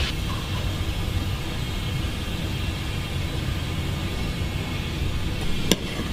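A large pot of goat heads and trotters at a hard, foaming boil: a steady low rumble with a hiss over it. Near the end comes one sharp metal clink as a steel ladle goes into the pot.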